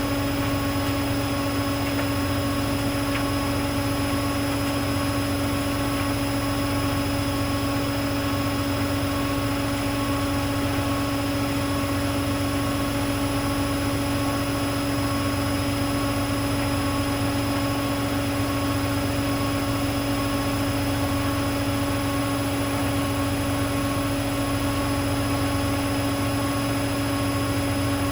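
Hoover Dynamic Next washing machine running on a cotton 40 cycle, with a steady, unchanging motor whine over a constant whoosh.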